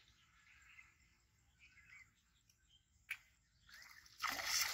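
Faint bird chirps, then near the end a brief, loud splash of pond water as a fishing rod is jerked up and the line pulled out of the water.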